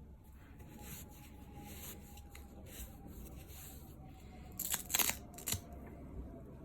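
Soft rubbing and rustling of a nylon watch band being handled, with a cluster of short, louder rasping scrapes about five seconds in.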